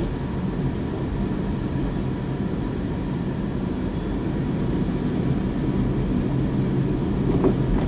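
Steady rumble of a car being driven, heard from inside the cabin: engine hum and tyre noise at low speed.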